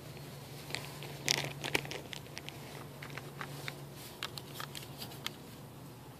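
Dry straw crackling and rustling in scattered sharp clicks as cats move about on it, with a louder cluster of crackles a little over a second in. A faint steady low hum underneath stops about four seconds in.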